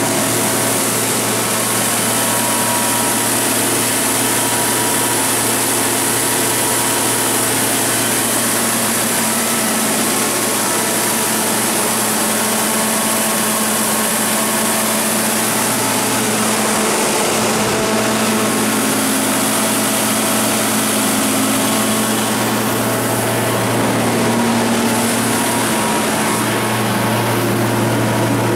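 Ford LSG-875 V8 natural-gas engine of a Kohler 100 kW standby generator set running steadily at its governed generator speed, a constant drone with a high hiss over it. The pitch shifts slightly about 17 and 26 seconds in.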